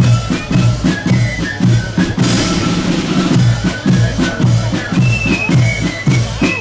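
Marching band playing: side drums and a bass drum beat a steady march rhythm, with a melody line faint above the drums.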